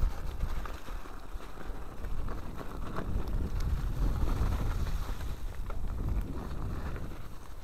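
Mountain bike riding over a rough snowy woodland trail, heard through a handlebar-mounted camera: a steady low wind rumble on the microphone with scattered rattles and knocks from the bike over the bumps.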